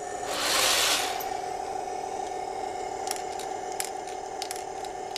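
Plastic 0.25 g airsoft BBs being loaded into an RC tank's airsoft unit. There is a brief rush of handling noise near the start, then a few light clicks a couple of seconds later, over a steady hum.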